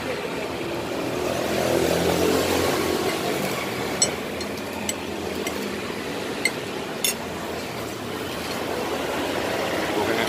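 Steady hum of passing street traffic, louder for a moment about two seconds in. A metal spoon clinks against a ceramic plate several times between about four and seven seconds in.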